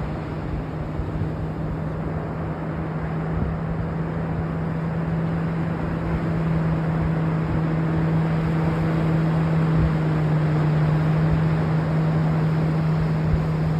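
Steady rushing of ocean surf and wind, growing a little louder in the second half. Under it runs a steady low hum like a distant engine.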